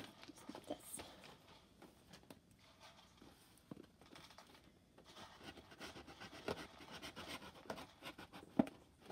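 Scissors snipping and scraping at the top of a packaging bag, with the bag crinkling; the scissors are dull and barely cut. Faint, with a run of sharper snips and clicks in the last few seconds.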